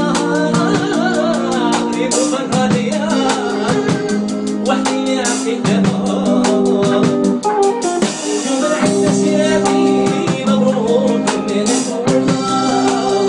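A man singing into a microphone over instrumental accompaniment with drums and percussion.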